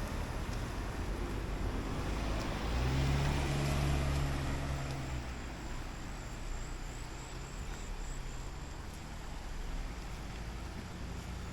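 A motor vehicle running past on the road, its low engine hum swelling about three to five seconds in and then fading. A faint pulsing insect trill comes in during the second half.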